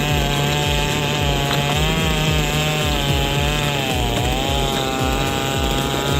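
Chainsaw running and cutting wood, its engine pitch dipping and recovering several times as the chain bites.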